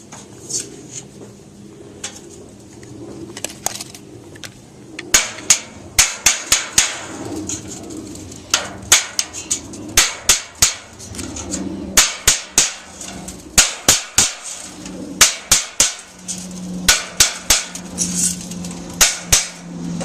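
Hammer blows in quick runs of three to six strikes, about three a second, with short pauses between the runs.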